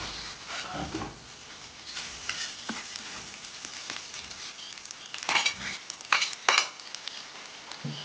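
Metal utensil stirring, scraping and clinking against a cooking pot, with a few sharp clanks between about five and six and a half seconds in.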